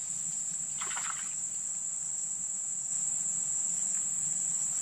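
Insects buzzing in a continuous, steady high-pitched drone, with a brief soft rustle about a second in.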